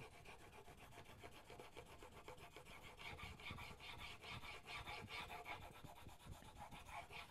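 A hand-forged chisel, held in a Sharp Skate honing guide, is being pushed back and forth on a sharpening stone with its bevel flat, making a quiet, rhythmic scraping of steel on stone that grows a little louder about three seconds in.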